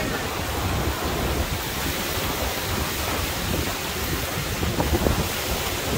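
Hurricane-force wind and driving rain: a steady, dense rushing noise at an even level with no let-up.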